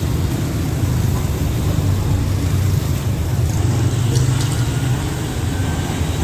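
Steady low rumble of road traffic beneath an elevated highway.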